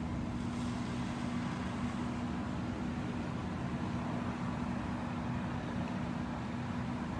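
A fire engine's engine running steadily at constant speed: a continuous low rumble with a steady hum that does not change.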